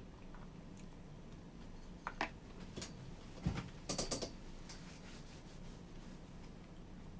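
Wooden disposable chopsticks clicking and scraping against a plastic bento tray: a few sharp clicks about two seconds in, a dull knock at about three and a half seconds, and a quick cluster of clicks around four seconds as the chopsticks are set down across the tray, over a faint low hum.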